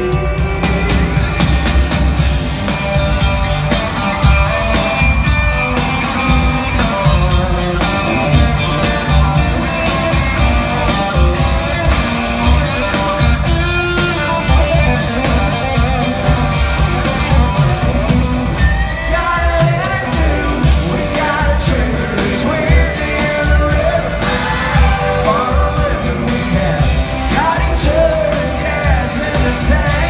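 Live country-rock band playing loud through an arena sound system, with a lead vocal and electric guitar over bass and drums.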